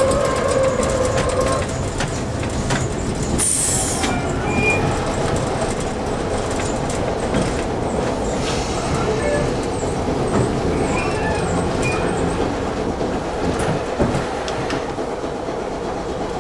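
Peter Witt streetcar running slowly along a curving track, a steady rumble of wheels and running gear with the wheels squealing on the curve for the first second or so. There is a short high hiss about three and a half seconds in.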